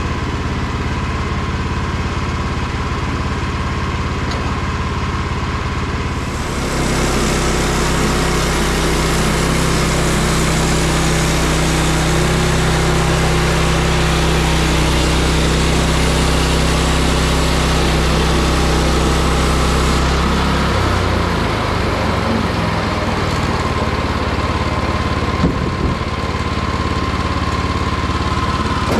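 Woodland Mills HM122 band sawmill with its gas engine running. About six seconds in, the blade goes into the log and a loud sawing hiss joins the engine, whose note drops under the cutting load. About twenty seconds in, the engine note changes again as the load comes off.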